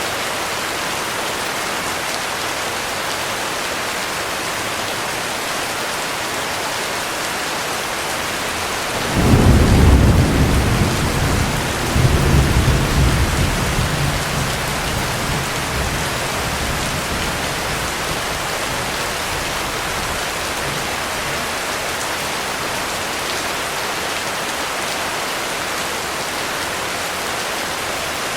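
Heavy rain falling steadily. About a third of the way in, a thunderclap breaks out as a loud low rumble, swells again a few seconds later, then rolls away under the rain.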